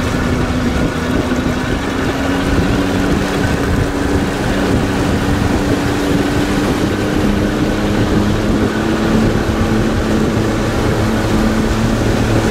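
Mercury outboard motor on a fishing boat running steadily under way, a constant drone with water rushing past the hull.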